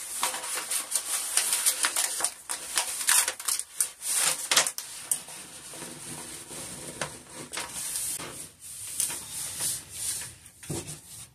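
Peel-and-stick wallpaper panel being hung: its paper backing crinkling and crackling as it is peeled away, with hands rubbing and pressing the sheet flat against the wall, in a busy run of rustles and sharp crackles.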